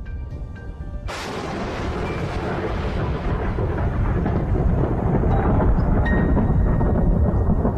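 Thunder: a sudden crack about a second in, then a long rolling rumble that grows louder.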